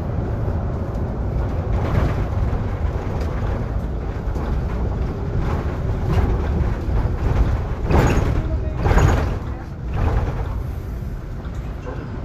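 Cabin ride noise of a Solaris Urbino 18 IV articulated city bus under way: a steady low rumble, with two louder creaks about eight and nine seconds in from its squeaking articulation joint.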